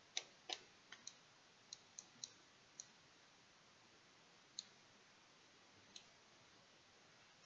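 Faint, scattered clicks of a computer mouse, about ten of them, most packed into the first three seconds and two more spaced out later.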